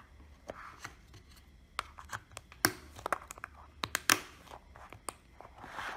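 Hands working slime and its plastic storage boxes: irregular small clicks, crackles and snaps, the sharpest about two and a half and four seconds in.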